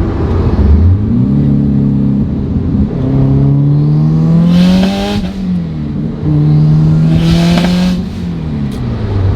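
Car engine accelerating hard through the gears: the revs climb, fall with an upshift about five seconds in, climb again and fall with a second upshift near the end. A loud rush of air comes at the top of each gear.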